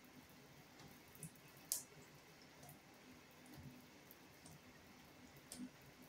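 Near silence: faint room tone with a few sharp ticks, the clearest about two seconds in and another near the end.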